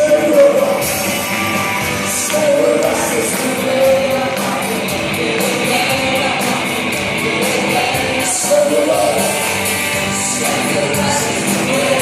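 Music with singing, a song that plays loudly throughout.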